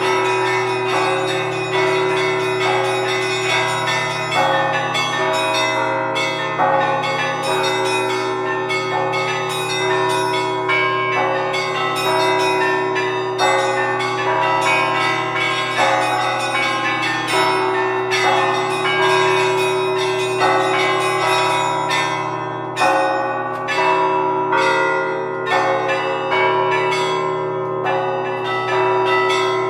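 Several church bells ringing together. They are struck in quick, unbroken succession, each tone ringing on and overlapping the next.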